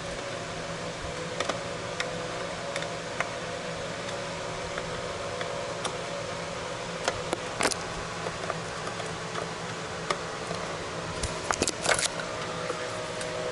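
Light clicks and taps of hands handling the plastic parts of an opened headlight assembly, scattered, with a bunch of them about seven seconds in and another near the end, over a steady background hum.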